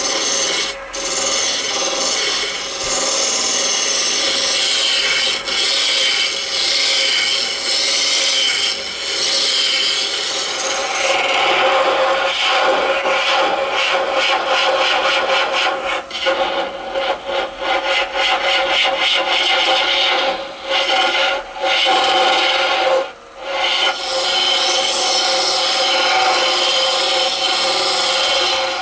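Wood lathe spinning a banksia pod cast in resin while a turning tool scrapes against it: a steady rasping rub with a steady hum under it, turning into a rapid fluttering chatter for several seconds midway and breaking off briefly a few times. It stops abruptly at the end.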